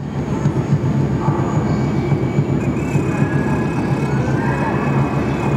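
Electronic drone and noise from an interactive sound-installation console played through its speakers, with thin high tones sliding slowly up and down in pitch over a dense low rumble.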